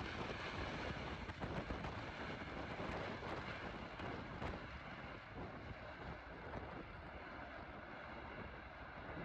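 Boeing 777 freighter's GE90 jet engines sounding as a steady noise while it rolls out on a wet runway just after touchdown, fading slowly, with wind buffeting the microphone.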